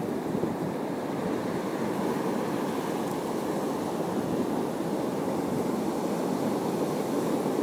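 Steady wash of sea surf against a rocky shore, an even rushing noise with no pitched sound in it.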